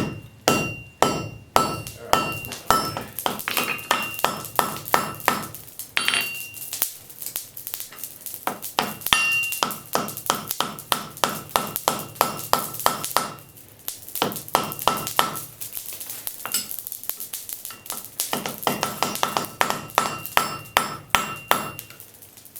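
Blacksmith's hammer striking hot high-carbon steel on an anvil, about three blows a second in runs with a few short pauses, the anvil ringing with each blow.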